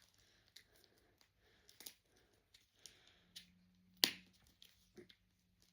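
Scattered light clicks and taps of hands handling a plastic toy blind-box pack, the sharpest about four seconds in.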